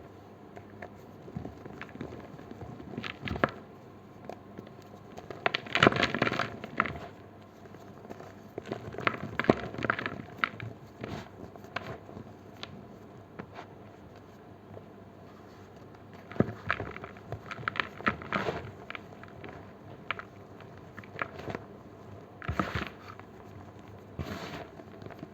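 Slices of gym chalk being crushed, crunching and crackling in irregular bursts with short pauses between.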